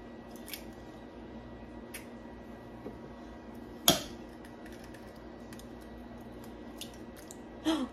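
Eggs being cracked by hand: one sharp crack about four seconds in, with a few faint clicks of the shells being handled and pulled apart.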